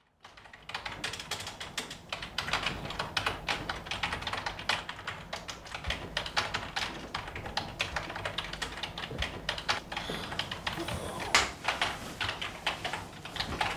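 Rapid, irregular clicking and tapping, starting about half a second in.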